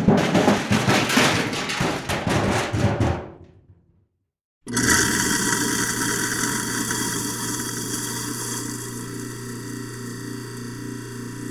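Garbage bin sound effects: about three and a half seconds of dense clattering and rattling, then after a second of silence a steady mechanical sound with a low hum and a regular pulsing that slowly fades.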